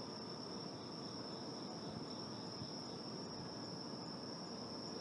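Night insect ambience of crickets: a single steady, high-pitched trill over a faint hiss.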